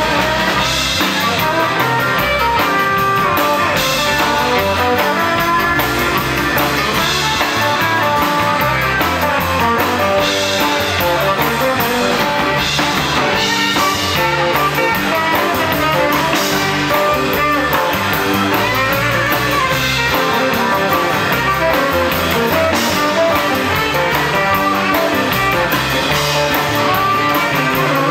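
Live rockabilly band playing an instrumental passage: saxophone with electric guitar, upright double bass and drum kit.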